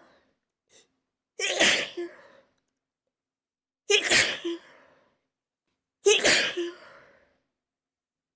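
A person sneezing three times, a little over two seconds apart, each a sharp burst with a fading tail. The sneezes are set off by chhinkni, a herbal sneezing powder.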